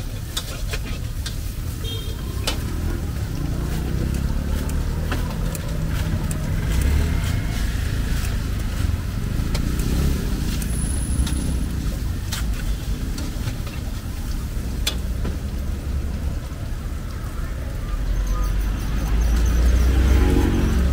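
Street traffic: motor vehicle engines running and passing, with one passing loudest near the end, and scattered sharp clicks and knocks.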